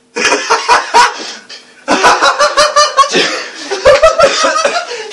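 Laughter at a joke's punchline, in quick repeated bursts, with a brief lull about a second and a half in before it picks up again.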